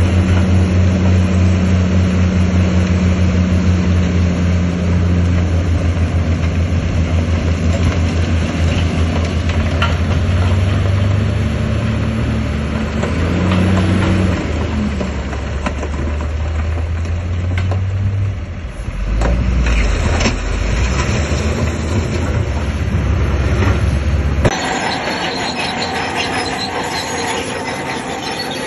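Bulldozer diesel engine running under load, with the steel crawler tracks clanking and squealing as the machine pushes stone. Near the end the engine hum drops away suddenly and the squeal and grinding of the tracks take over.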